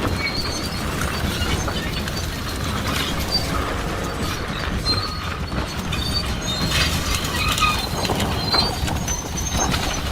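Bulldozers dragging a heavy chain through brush: a steady low engine rumble under continual clattering of metal and the crackle of bushes being torn up.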